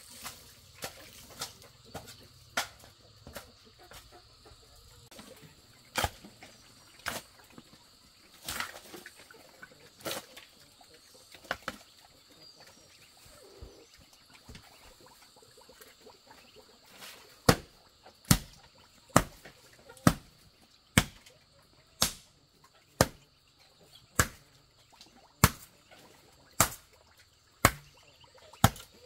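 Hoe blade chopping into soil, scattered knocks at first, then steady strokes about once a second through the second half.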